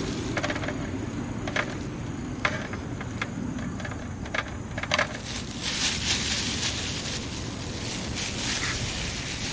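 Outdoor ambience: a steady low rumble of wind on the microphone, with a few light clicks in the first half and a stretch of high hiss later.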